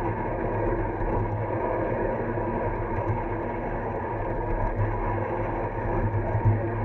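Ride-on miniature railway train rolling along the track, heard from the caboose: a steady rumble of wheels running on the rails.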